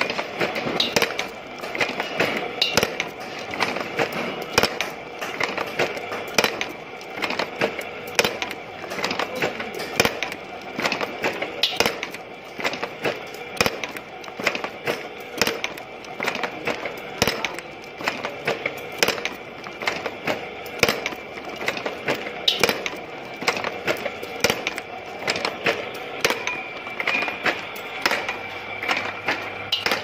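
Automatic wire-forming machine bending steel wire into belt buckle frames, running with rapid, repeated metallic clacks over a steady tone.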